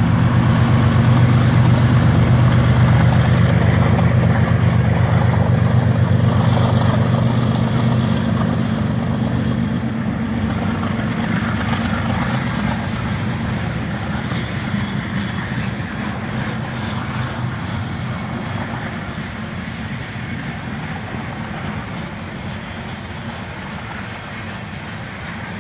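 CSX diesel freight locomotive passing close with a low engine drone that fades over the first several seconds, followed by freight cars rolling past with steady wheel-and-rail noise that slowly dies down.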